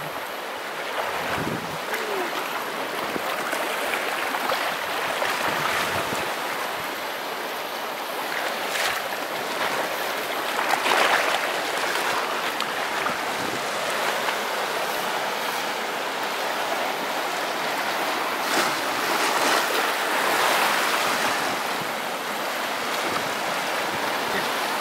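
Small sea waves washing and splashing over shoreline rocks, a steady rush that swells louder about eleven seconds in and again near twenty seconds.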